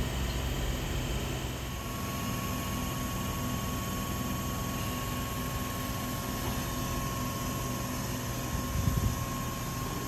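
Sydney double-deck electric train rumbling past close by. After a cut about two seconds in, it gives way to a Sydney Trains K set electric train departing, with a steady high whine over a low rumble and a few low knocks near the end.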